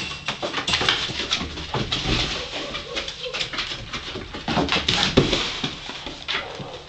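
Labrador Retriever puppy's claws and paws clattering on wooden porch deck boards as it runs after a tossed duck wing: a run of irregular clicks and taps, with a few louder knocks about five seconds in.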